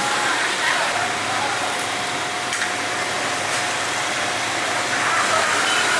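Deep-frying over a strong gas flame: hot oil sizzling in a steady, even hiss, with a faint steady whine coming in about a second in.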